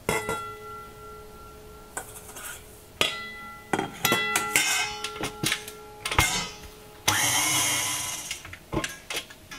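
A metal spoon knocking several times against a stainless steel mixing bowl, each knock leaving the bowl ringing, while icing sugar is added to royal icing a spoonful at a time. About seven seconds in, a loud steady rushing noise lasts for about a second and a half.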